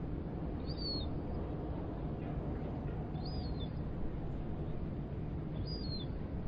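Harbor ambience: a steady low rumble under a gull calling three times, short high cries about every two and a half seconds.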